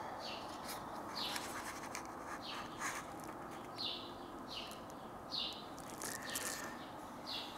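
Short high chirps that fall in pitch, repeating about once a second over a faint steady hiss, with a few light clicks.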